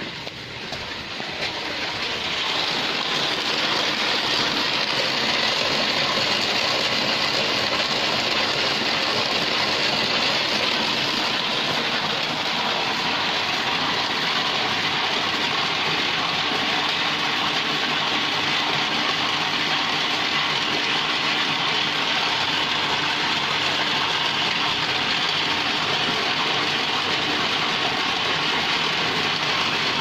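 Automatic rice washing machine running with a steady, noisy rush while wet rice pours from its stainless steel discharge pipe into a tub. It grows louder over the first two seconds, then holds steady.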